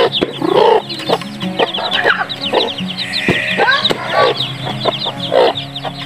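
Chicks peeping rapidly and continuously while a native mother hen clucks among them, over steady background music.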